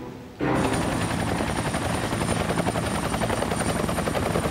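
Helicopter rotors beating in a fast, even pulse, with a thin high whine above it, cutting in suddenly about half a second in.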